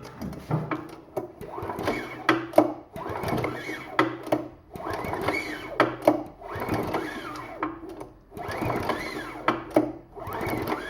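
Small engine cranked over repeatedly by hand, the flywheel spinning with a whirring rattle on each pull, about one pull every second or so, without the engine starting. It is being turned over to test the ignition for spark at the points and coil.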